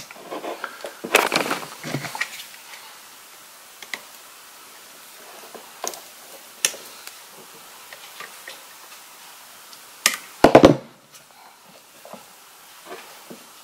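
Scattered clicks, taps and scrapes of a utility knife scoring and pliers tugging at the thick insulation on a heavy-gauge electrical cable conductor, busiest about a second in, with a loud knock about ten seconds in.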